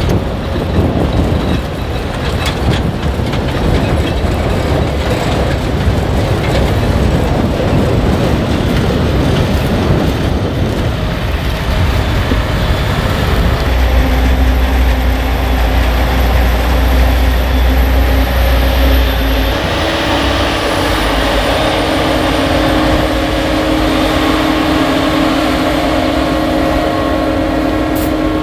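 Heavy diesel farm vehicles running steadily at a corn harvest. A deep rumble swells about halfway through, then gives way to a steadier, higher engine hum.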